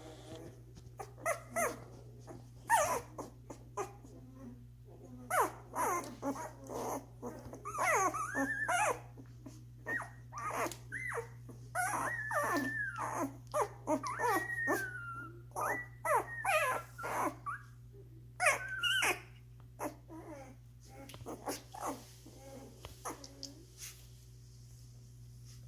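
Week-old Doberman puppies whimpering and squealing in many short cries that rise and fall in pitch, thinning out near the end, over a steady low hum.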